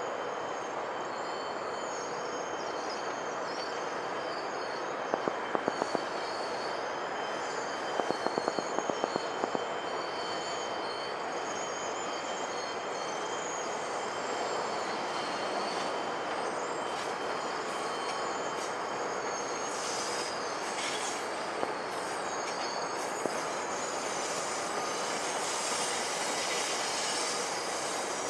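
GO Transit bilevel coaches rolling slowly through the station's switches, steel wheels squealing with a wavering high tone over a steady rumble. Two quick runs of clicks from the wheels crossing rail joints come about five and eight seconds in.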